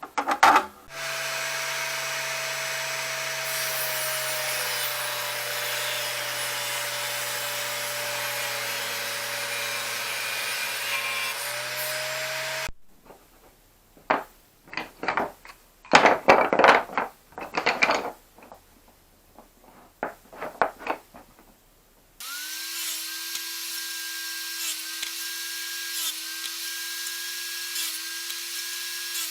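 A table-mounted circular saw runs steadily for about twelve seconds as it cuts a cherry log, its pitch sagging slightly under load and rising again near the end. It cuts off sharply, and a stretch of irregular loud bursts of wood noise follows. From about two-thirds of the way in, a different power tool runs at a steady pitch with small regular dips.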